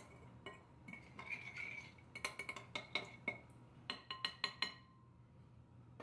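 Spoon stirring liquid in a glass mixing bowl, clinking against the glass in quick runs of ringing taps. This is the quick stir of the wet ingredients (water, salt, yeast, olive oil) for pizza dough. The clinking stops near the end.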